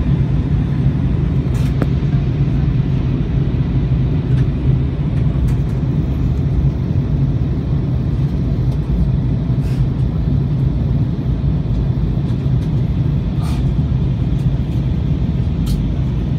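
Airbus A321 cabin noise at a window seat in flight: a steady, even rumble of engines and airflow, strongest low down. A few faint clicks stand out against it.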